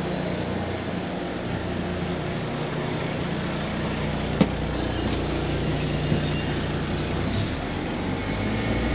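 LiAZ 5292 city bus running, heard from inside the passenger cabin: a steady engine hum whose low note shifts slightly, with a thin high whine over it. A single sharp click comes about four and a half seconds in.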